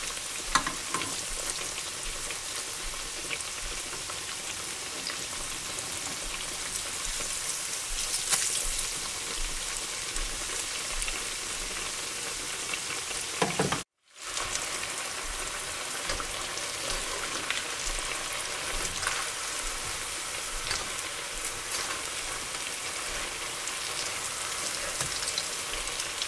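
Tempura-battered eggplant deep-frying in hot oil: a steady crackling sizzle, with a couple of sharp clicks. The sound cuts out for a moment about halfway through.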